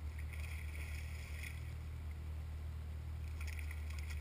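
Water splashing and lapping beside a kayak hull, in two spells, over a steady low hum.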